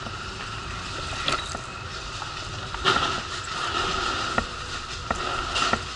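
Wheelchair rolling along a gangway's deck, with a few irregular knocks and clatters as the wheels cross joints and bumps, the loudest about three seconds in, over a steady hum.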